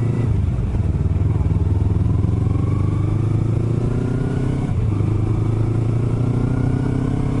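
Motorcycle engine accelerating, its note climbing steadily. About five seconds in the pitch drops at an upshift, then climbs again.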